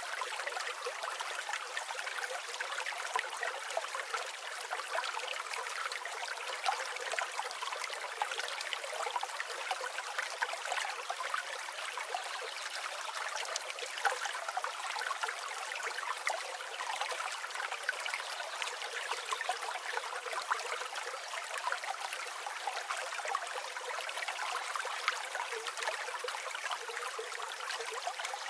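A small forest creek running over stones: a steady, busy trickling and babbling with many small splashes, and no low rumble.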